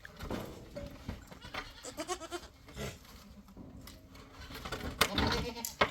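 Goats bleating, several short wavering calls.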